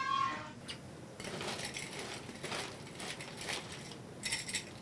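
Ice cubes rattling and clinking in a bar ice bin as a bare hand rummages through them and scoops them up, with a sharper cluster of clinks about four seconds in.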